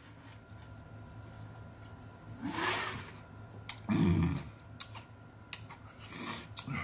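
A man breathes out hard through his lips and gives a short low vocal hum, reacting to chili heat burning his mouth. A few sharp clicks come from ice in the plastic jug of ice water he is holding.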